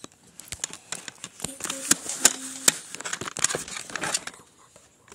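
Phone handling noise: fingers and hand rubbing and tapping on the phone right at its microphone, giving a busy run of crinkling, crackling and sharp clicks.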